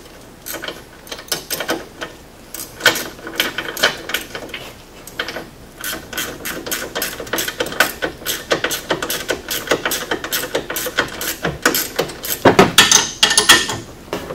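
Hand ratchet wrench clicking in quick runs as the nut on a UTV's sway bar end link is tightened down, with a few louder metal clanks near the end.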